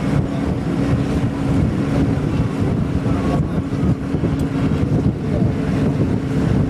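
Interior of a moving bus at road speed: steady engine hum and road rumble, with wind noise across the microphone.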